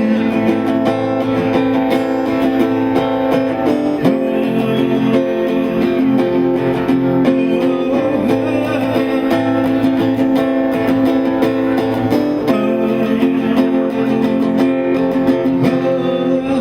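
Acoustic guitar strumming chords, changing chord about every four seconds, as an instrumental close to a recited poem.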